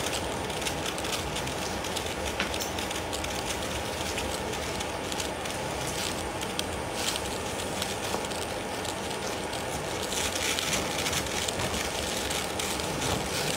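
Steady rushing noise with scattered faint crackles, growing a little brighter and louder about ten seconds in.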